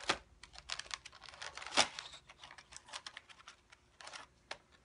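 Plastic Oreo cookie packaging crinkling and crackling as it is handled and a cookie is pulled out: a dense run of sharp crackles that thins to a few scattered clicks after a couple of seconds.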